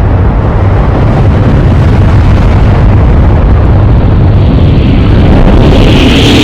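Loud, continuous, distorted rumbling noise, heaviest in the low end. About five seconds in, a higher hissing band and a faint steady tone join it.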